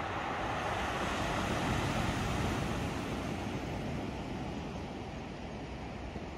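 Sea surf washing on the shore, a steady noisy wash, with wind rumbling on the microphone.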